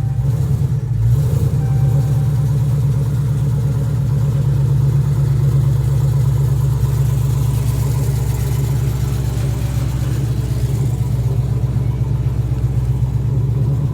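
Cammed 6.4-litre HEMI V8 with long-tube headers and 3-inch exhaust, idling and creeping in reverse, heard inside the cabin with the window down. The exhaust gives a steady, deep rumble.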